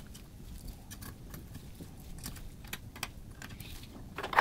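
Light metallic clicks and ticks of a T-handle hex driver turning small screws into a graphics card back plate, irregular, a few a second, with one louder knock near the end.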